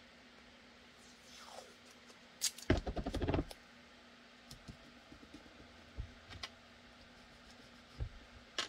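Blue painter's tape pulled off the roll in a loud crackling rip between about two and a half and three and a half seconds in, followed by scattered light taps and clicks as the tape is pressed down by hand.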